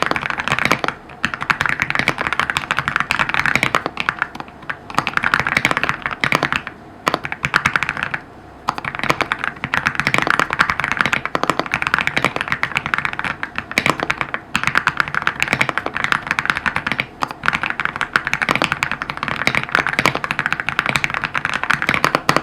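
Fast typing on an EPOMAKER x AULA F65 mechanical keyboard with LEOBOG Graywood v3 switches: a rapid, continuous stream of keystroke clacks, broken by brief pauses every few seconds.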